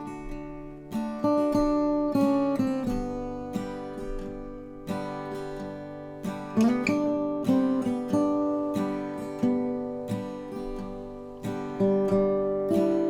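Acoustic guitar music: strummed chords about once a second, each ringing out and fading before the next, with a short slide in pitch about halfway through.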